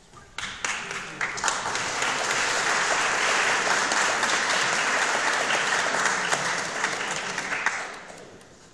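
Audience applauding. It starts with a few scattered claps, builds to full applause within about a second and a half, holds steady, and dies away near the end.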